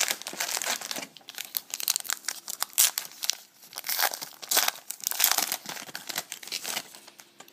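A foil trading-card pack wrapper being torn open and crinkled: a dense, irregular run of crackling and rustling.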